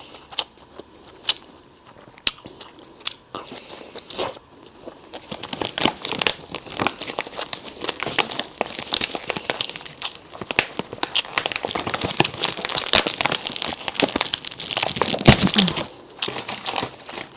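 Close-miked eating of imitation crab sticks: scattered sharp wet clicks for the first few seconds, then a dense run of crackling and crinkling from about five seconds in until near the end.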